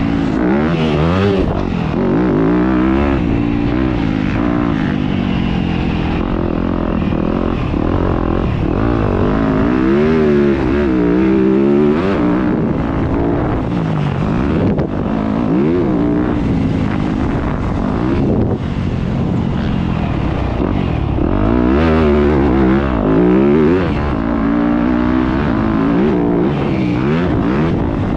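Yamaha YZ250F 250cc four-stroke single-cylinder dirt bike engine under race throttle, its pitch climbing again and again and dropping back as the throttle is worked through the gears.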